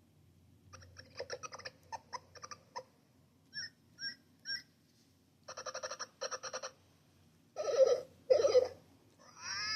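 A string of recorded rainforest animal calls played one after another: a stretch of rapid chattering, three short chirps, more chattering, then two loud hooting calls and a call that glides up and down near the end.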